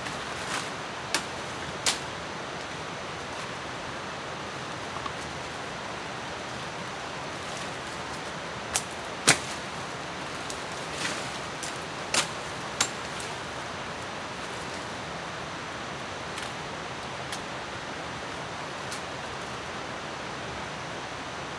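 A machete chopping at branches and stems: a handful of sharp strokes, mostly in pairs, the loudest about nine seconds in. Under it runs the steady rush of flowing water.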